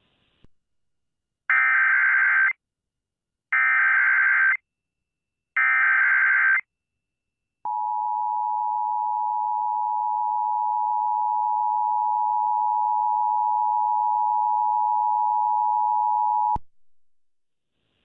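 Emergency Alert System SAME header: three short bursts of digital data chirps, about two seconds apart. They are followed by the steady two-tone EAS attention signal, held for about nine seconds and cutting off suddenly. Together they mark the start of an EAS alert activation, here for a tornado warning.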